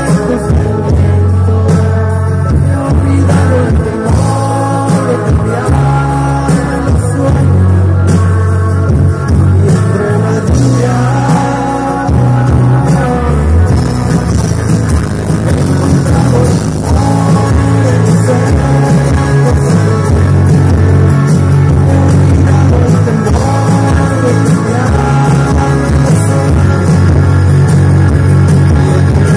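Live rock band playing a song over the PA, heard from within the crowd: a sung melody over drums, guitars and a heavy bass line, continuous and loud.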